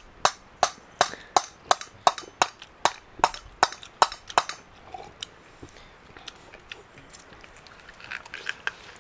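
A steady run of about a dozen sharp knocks, nearly three a second, that stops after about four and a half seconds. Fainter scattered clicks follow, bunching up near the end.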